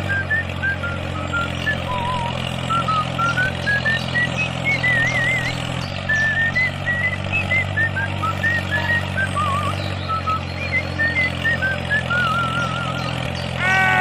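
Heavy-vehicle engine sound effect running steadily under a playful tune of short, chirpy, warbling whistle-like notes that skip up and down, laid over a toy road roller's drive.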